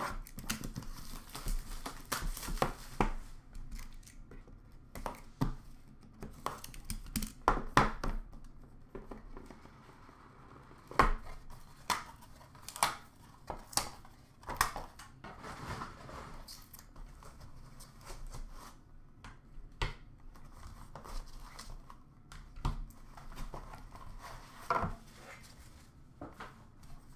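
A sealed trading-card box being unwrapped and opened by hand: crinkling and tearing of its wrapping, then scattered clicks and rubs as the cardboard lid and foam insert are handled. The handling is busiest in the first several seconds, with sharper knocks now and then after that.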